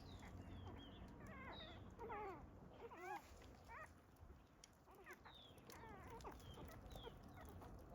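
Newborn puppies whining and whimpering: a series of short, wavering high-pitched whines, faint.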